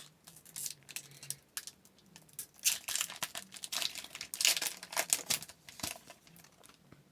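A hockey card pack's wrapper being torn open and crinkled. The rustling comes in irregular bursts, loudest about three to five seconds in.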